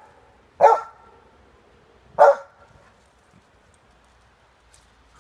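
A dog barking twice during play: two short, sharp barks about a second and a half apart.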